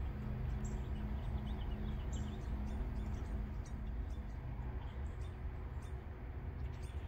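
Small birds chirping, with many short high calls scattered throughout, over a steady low hum and rumble.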